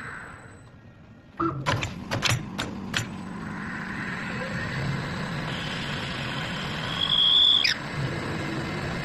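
Mini CNC wood lathe at work: a quick run of clacks from the feed and tooling mechanism about a second and a half in, then the steady noise of cutting wood, with a high whine that swells and then drops away near the end.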